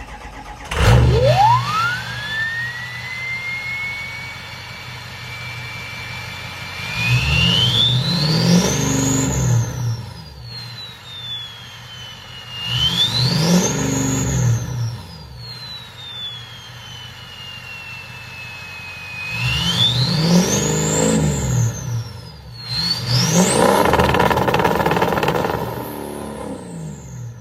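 6.0 Power Stroke diesel with a 9-blade drop-in turbo starting up, the turbo whistle sweeping up to a steady high whine at idle. It is then revved four times, each rev sending the whistle sharply higher before it slowly falls away; the last two revs come close together.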